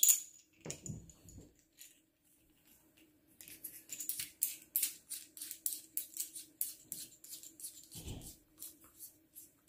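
A laser sight, its ring mount and its coiled pressure-switch cord being handled, small hard parts clicking and scraping together. A sharp click comes at the start. From about three seconds in there is a long run of quick, light clicks, with a dull thump near the end.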